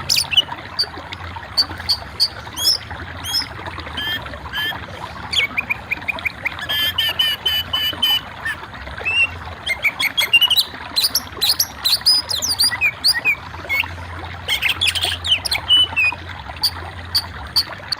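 Birds chirping: many short, sharp, high calls and quick trills, repeated through the whole stretch and thickest about seven seconds in and again near the end, over a steady background hiss.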